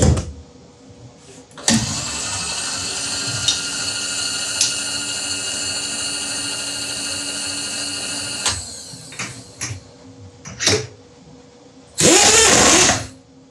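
Milling machine motor running with a steady whine, then winding down as it is switched off. About a second later comes a brief loud noisy burst.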